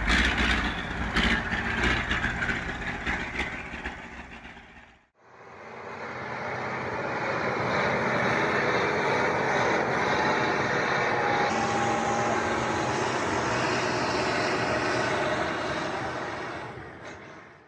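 Heavy vehicle engine noise with a few sharp knocks. A brief cut to silence about five seconds in is followed by a steady, noisy engine running sound that fades out near the end.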